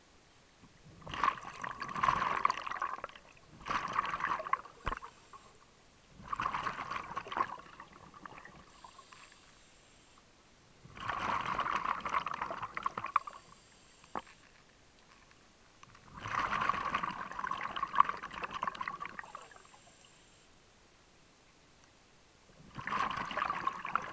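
Scuba diver breathing underwater: regulator exhaust bubbles burst out on each exhale, six bubbling bursts a few seconds apart with quiet gaps between for the inhales.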